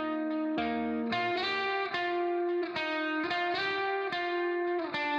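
Background music: guitar playing chords with a steady rhythm.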